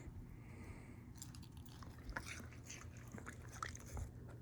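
Faint chewing of watermelon, a scattering of small crunches and clicks.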